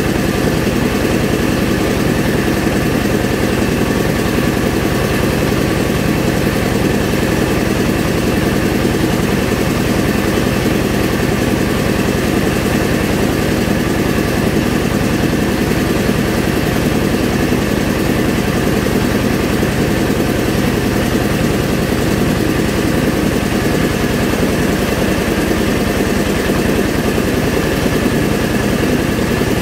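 Mobile rice-milling machine running steadily, its engine and mill working at a constant pace as paddy is milled.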